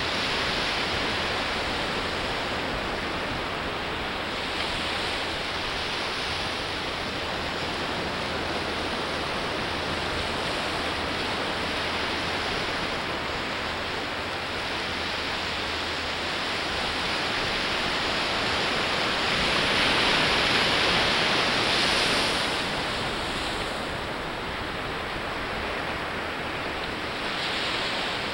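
Atlantic surf breaking and washing up a sandy beach: a continuous hiss of waves that swells and ebbs, loudest about two-thirds of the way through as a larger wave breaks, with a smaller swell near the end.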